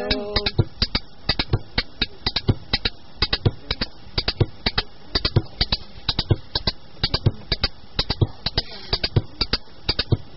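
A sung phrase ends about half a second in. Percussion then plays alone, a brisk, slightly uneven pattern of sharp strikes, about three to four a second.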